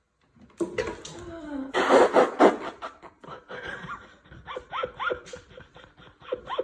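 A person laughing in short repeated bursts, after a louder, noisy jumble of sound in the first couple of seconds.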